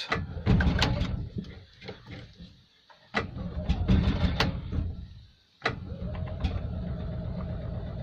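Steyr-Puch air-cooled flat-twin engine of an Invacar Model 70 being cranked three times without catching, the third attempt longest: a reluctant cold start in sub-freezing weather, which the owner puts down partly to thick 30-grade oil.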